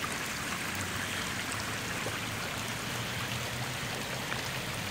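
Steady rush of rainwater runoff flowing in a sheet over a gravel driveway in heavy rain.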